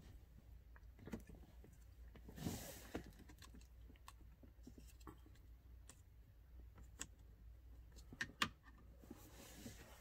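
Faint, scattered clicks and taps of a plastic HVAC blend door actuator being handled and fitted onto the heater box under the dash, with a few sharper clicks late on.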